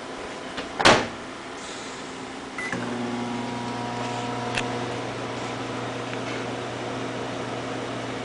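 Microwave oven being started: a loud click about a second in, a short beep, then the oven running with a steady hum.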